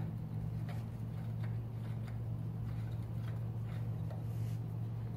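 Irregular light metal clicks and taps, about two a second, from a bicycle crank arm being fitted onto a mid-drive motor's spindle, over a steady low hum.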